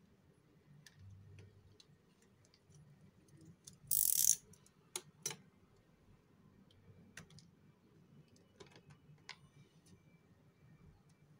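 A bar of soap being cut and broken with a small craft blade: sparse crisp cracks and clicks as slivers come away, with one louder crunch lasting under half a second about four seconds in.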